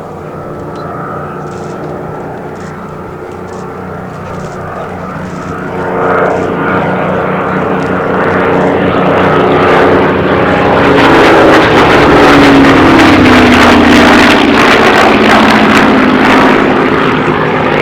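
Rolls-Royce Merlin V12 engine of a Second World War fighter flying past, growing louder as it approaches. Its engine note drops in pitch as it passes, loudest a little past the middle.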